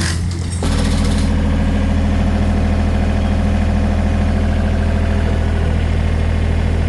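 An engine idling steadily at a constant speed, with a low, even hum.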